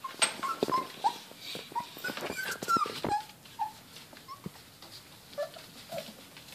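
Four-week-old Border Collie puppies whimpering and yipping during play: many short, high squeaks, some falling in pitch, over scratchy rustling.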